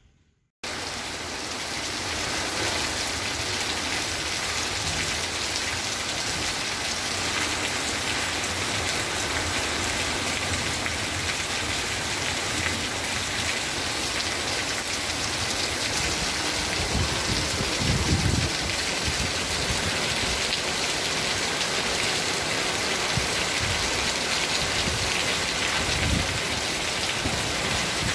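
Heavy, wind-driven rain pouring down in a steady, dense hiss, starting suddenly after a moment of silence, with a brief low rumble about two-thirds of the way through.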